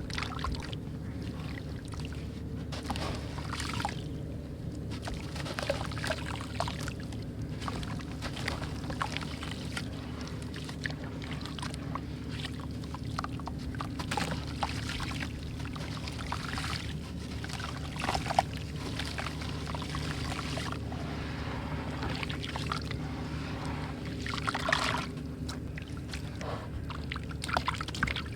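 Brick pieces crumbling in water: scattered soft crackles and light watery sloshing, over a steady low hum.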